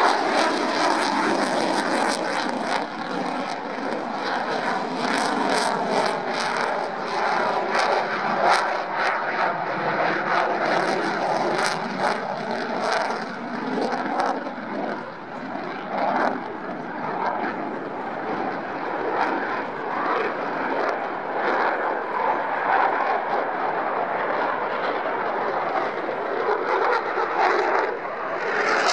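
Eurofighter Typhoon's twin EJ200 turbofan engines running loud as the jet flies its display overhead: a dense, steady jet noise whose pitch slides slowly as it passes, with sharp crackling through the first half.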